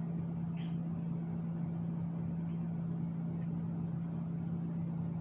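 Steady low hum of a room air conditioner running, one unchanging pitch.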